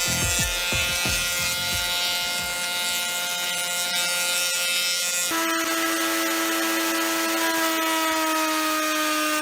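An electric power tool's motor whining steadily at an even pitch. About five seconds in the pitch changes to a lower set of tones, which then sags slightly.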